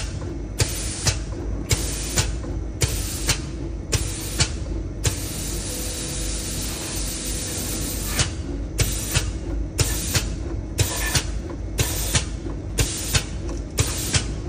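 Automatic PCB conformal coating machine spraying: the spray valve clicks open and shut, giving short hisses of atomised coating about once a second, with one longer spray of about three seconds in the middle. A steady low machine hum runs underneath.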